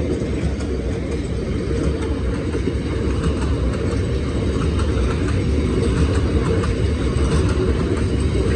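Freight train hauled by Class 66 diesel locomotive 66742 rolling past: a steady, loud rumble of wheels on rail, with scattered clicks over the rail joints.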